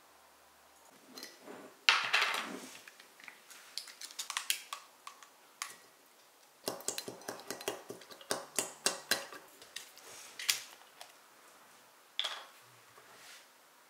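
Glassware and utensils clinking and knocking on a kitchen counter: a sharp knock about two seconds in, scattered clinks, then a quick run of taps against a glass jar in the middle, and one more knock near the end.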